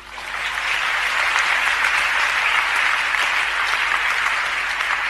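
A large audience applauding. The clapping swells quickly at the start and then holds steady.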